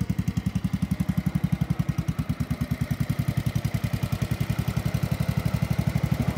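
Small John Deere garden tractor engine idling steadily, with an even chugging of about ten firing pulses a second.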